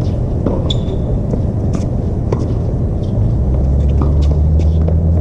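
Tennis ball struck back and forth in a rally: short sharp pops over a loud, steady low rumble that grows stronger about three seconds in.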